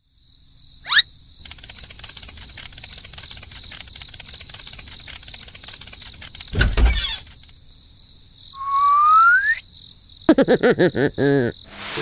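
Cartoon sound effects over a steady chirping of crickets: a quick rising swish about a second in, a heavy thud just past halfway, a rising whistle later on, then a fast run of bouncy pitched blips near the end.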